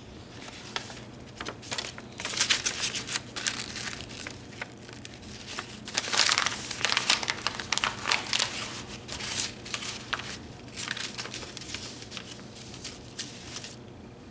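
Paper or plastic packaging being crumpled and handled, in irregular crinkly bursts that are loudest about six to seven seconds in.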